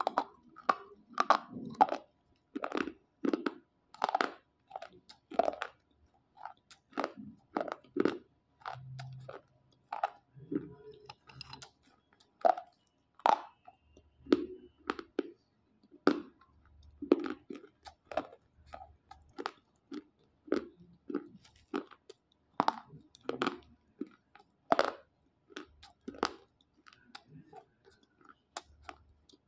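Dry slate pencils being bitten and chewed: a steady run of short, crisp crunches, about one or two a second.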